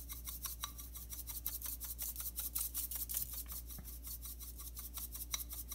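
Dry rub being shaken out of a shaker can: a quick, even run of scratchy rattling shakes, about five or six a second.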